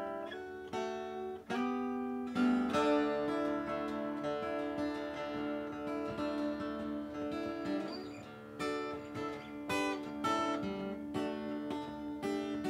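Cole Clark cutaway acoustic guitar played solo, a mix of picked notes and strummed chords that are left to ring.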